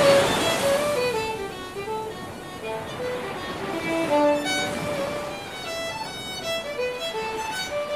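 Background music: a slow solo violin melody of single held notes, with a wash of sea waves swelling at the start.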